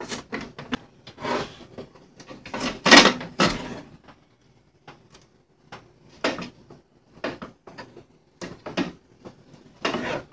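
Packing tape being peeled off a new Keurig K55 coffee maker's plastic body in a series of short rasping rips, the longest and loudest about three seconds in, mixed with light knocks of the plastic machine being tilted and handled.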